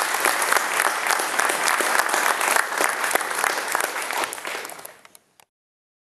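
Audience applauding with dense clapping, fading near the end and then cutting off abruptly to silence.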